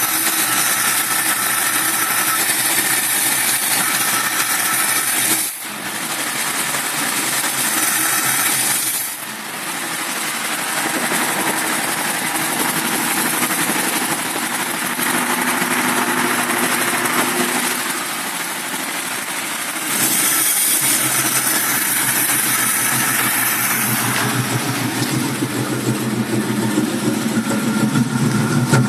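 1965 Ford Mustang engine with an Autolite 2150 two-barrel carburettor running at a rough idle. The sound dips briefly about five and nine seconds in, and turns to a heavier, uneven low pulsing near the end.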